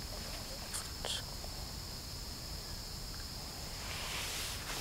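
Steady high-pitched chirring of insects, with a low rumble of wind underneath.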